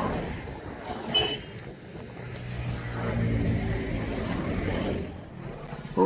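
Highway traffic passing, with wind on the microphone. There is a short high tone about a second in, and a vehicle's engine drone swells and fades in the middle.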